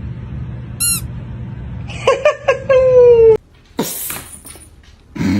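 Cat meowing: a few short meows about two seconds in, then a longer meow that falls slightly in pitch and cuts off suddenly.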